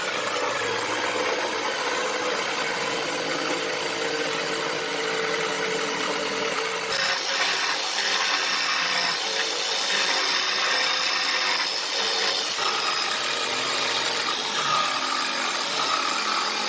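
A power tool working wood, running continuously while contouring the curved leg of a wooden bench base. It starts abruptly, and about seven seconds in its steady tone drops away and the sound turns brighter and harsher as the tool bites differently into the wood.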